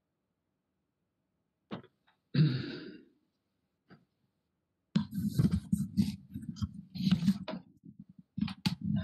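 A short throaty noise about two and a half seconds in, then several seconds of irregular close-up knocks and rustling at a webcam microphone as a man moves about right in front of it.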